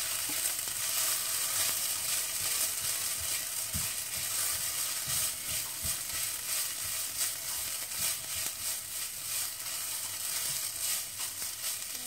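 Fried rice with leftover chicken and vegetables sizzling in oil in a non-stick pan, stirred and tossed by a silicone spatula, with the soft scrape of the spatula strokes through the steady sizzle.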